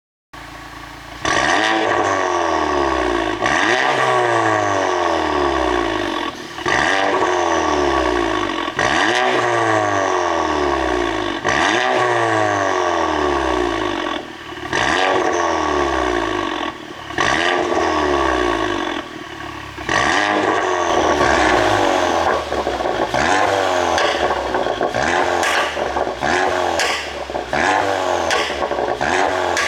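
Audi A5 45 TFSI's turbocharged 2.0-litre four-cylinder revved again and again in quick blips, about every two to three seconds, each falling back toward idle, with exhaust pops and crackles on the overrun from a pop-and-bang ECU tune; the crackling gets denser in the last third.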